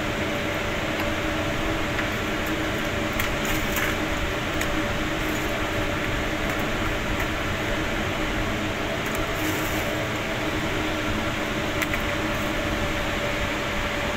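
Steady hum of running crematorium machinery: an even, fan-like rush with a couple of low steady tones, and a few faint clicks.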